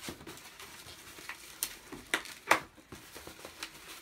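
Latex 260 modelling balloons being twisted and handled, rubbing and squeaking against each other, with a string of short sharp snaps. The loudest snap comes about two and a half seconds in.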